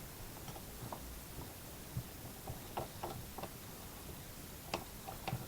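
Irregular light clicks and taps, about ten of them, from small parts and tools being handled on a workbench.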